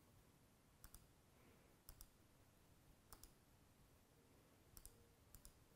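Near silence broken by about five faint, sharp clicks spread roughly a second apart: computer mouse clicks.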